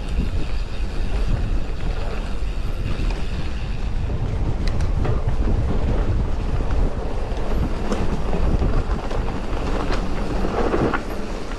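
Mountain bike rolling along a forest trail: a continuous rumble of tyres on dirt, with scattered clicks and rattles from the bike over bumps.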